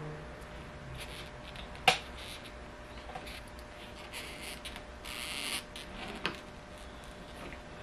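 Gloved hand pulling and working at a car's rubber door seal by the door pillar, with faint handling noise throughout. There is a sharp click about two seconds in, a scraping rustle around the fifth second, and another click a little after six seconds.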